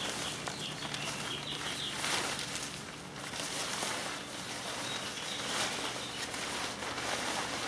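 Large fabric wardrobe cover rustling and flapping in repeated swishes as it is handled and pulled up over a metal frame.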